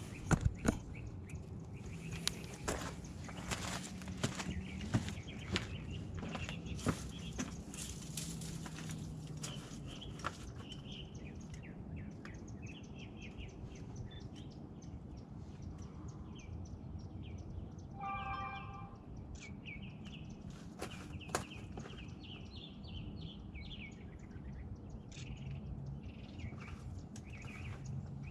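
Footsteps crunching on a dirt trail, then small birds chirping repeatedly, with one short harsher call about two-thirds of the way through.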